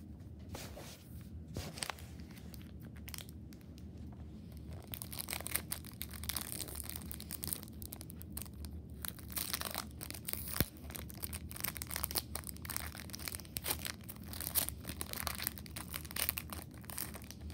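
Foil Pokémon booster pack wrapper being torn open and crinkled by hand: a long run of crackling rustles, sparse at first and busier from about five seconds in.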